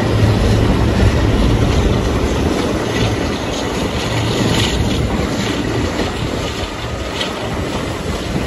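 Class 52 'Western' diesel-hydraulic D1015 running with its twin Maybach engines under power, heard from just behind the locomotive. The low engine note softens after about two seconds, and a few sharp clicks of wheels over rail joints come through the steady running noise.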